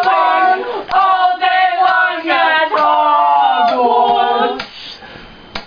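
Several young female voices singing together in long held notes. The singing ends about four and a half seconds in.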